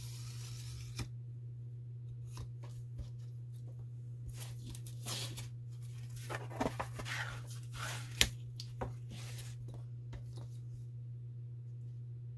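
A felt-tip marker drawn along a steel ruler in one stroke about a second long. Then rustling, scraping and scattered taps as the puzzle board and ruler are shifted about on a glass cutting board, with one sharp click about eight seconds in. A steady low electrical hum underneath.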